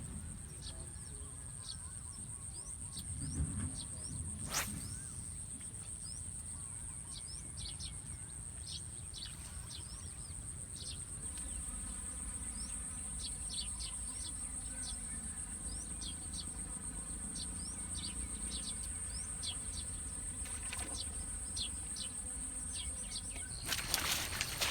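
Insects droning steadily at a high pitch, with many short, quick bird chirps over it and a low rumble underneath. A single sharp click about four and a half seconds in.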